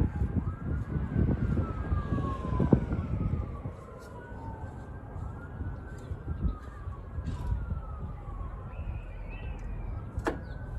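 Emergency-vehicle siren wailing, its pitch rising and falling slowly every two to three seconds. Under it are a low rumble and a few knocks, loudest in the first few seconds, and a sharp click near the end.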